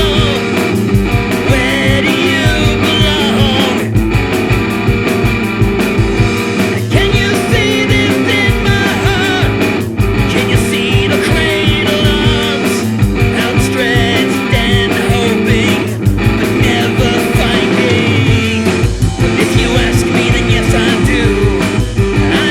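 Recorded rock song: a full band with guitar, bass and drums playing at a steady beat, with a wavering lead line riding over the top.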